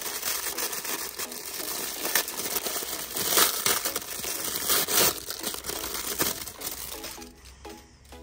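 Plastic packaging crinkling and crackling as it is handled, a dense run of small irregular clicks and rustles that thins out near the end.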